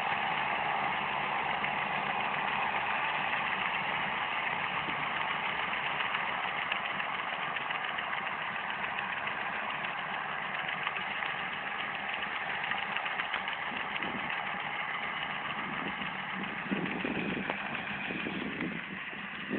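Diesel farm tractor engines running steadily in a continuous drone that eases off slightly towards the end.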